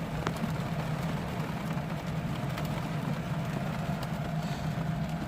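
Steady low mechanical hum of an air conditioner running, with a faint constant whine above it.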